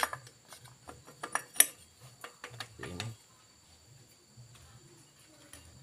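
Metal clinks and light knocks of the clutch basket and its parts being fitted by hand onto a Suzuki Satria 120R two-stroke engine. The clicks cluster in the first three seconds, the sharpest about a second and a half in, then die down to faint handling.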